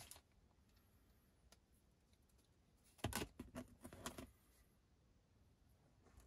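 Faint handling sounds of small items from a vinyl and leather repair kit: a soft click at the start, then a burst of rustling and light clicks about three seconds in that lasts about a second.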